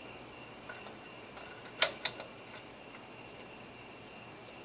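Short sharp metal clicks as a Mazdaspeed3's throttle body and its bolts are worked back into place by hand on the intake manifold. There is one loud click a little under two seconds in, a second close behind it, and a faint tap before them, over a steady faint hiss.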